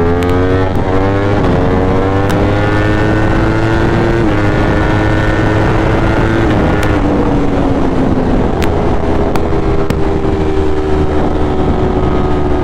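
Ducati Streetfighter V4 motorcycle accelerating hard. The V4 engine note climbs and steps back with each quick upshift through the gears for about the first seven seconds, then eases off into a steady highway cruise with wind rushing past.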